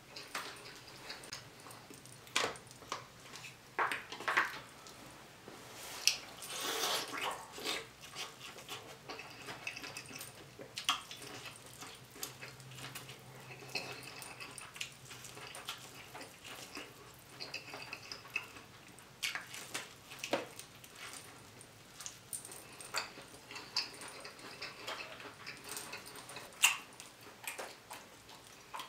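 Close-miked eating sounds: crab shells clicking and crackling as the meat is picked out by hand, with wet chewing in between. The clicks come irregularly, with a longer crackling stretch about six seconds in.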